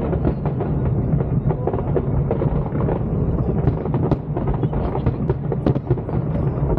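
Aerial fireworks bursting in rapid succession: a dense stream of sharp bangs and crackles over a continuous low rumble.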